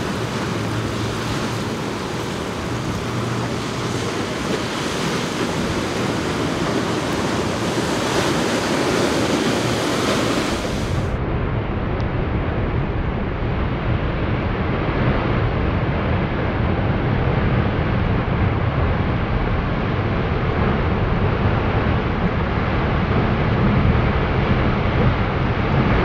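Wind buffeting the microphone over the rush of surf and boat wake, a steady noise with no clear engine note. About eleven seconds in, the sound turns duller and deeper as the footage switches to slow motion.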